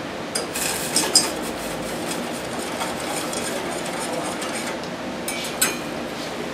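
A utensil clinking and scraping against a stainless steel saucepan while green pea cream sauce is stirred: a few sharp clinks about a second in and another near the end, over a steady hiss.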